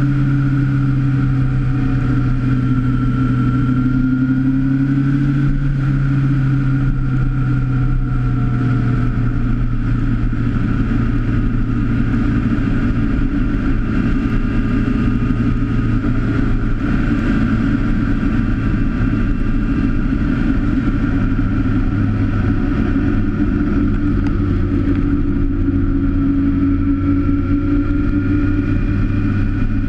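Motorcycle engine running steadily at cruising speed, its pitch easing down a little midway as the speed changes, over a steady rush of wind and road noise.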